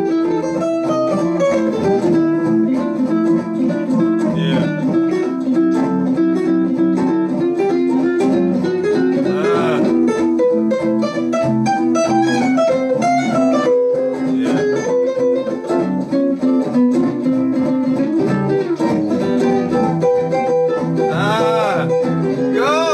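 Jazz guitar duet on two archtop guitars: a moving single-note melody line plays over held chords.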